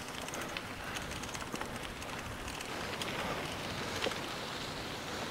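Mountain bike tyres rolling over a loose gravel trail: a steady crunching hiss sprinkled with many small ticks of grit and stones.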